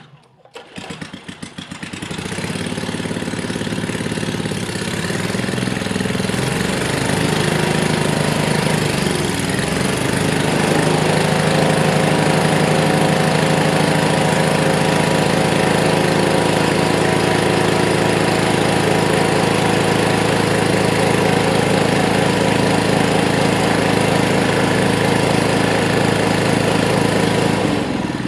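A Tecumseh 4 hp vertical-shaft gasoline engine is pull-started and catches within about a second. It then runs steadily, belt-driving the Roots blower of a siren. The engine and blower spin up over the first ten seconds or so and then hold speed, with a whoosh of blown air over the engine note. The blower runs below its normal speed, about two-thirds to three-quarters.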